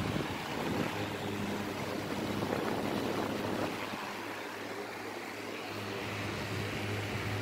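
Climate Keeper metal-grille fan running on high: a steady rush of air over a low, even motor hum.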